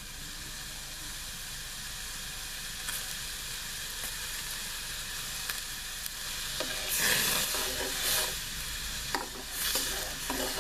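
Pure ginger juice heating in a pan over a stove flame as it comes to the boil: a steady sizzling hiss that slowly grows louder. From about seven seconds in, irregular crackling pops join it.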